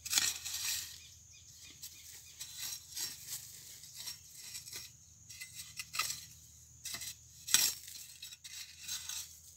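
A long-handled hoe chopping and scraping into loose earth in irregular strokes, digging around a cassava plant to unearth its root. The sharpest strikes come at the very start and about seven and a half seconds in.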